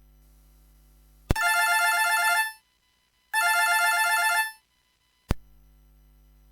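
A phone-style ringtone from the Samsung SGH-D600 set, played on a MediaTek MT6225 feature phone: two bursts of a fast electronic trill, each a little over a second long with a second's gap between, like a telephone bell. A sharp click comes just before the first burst and another near the end.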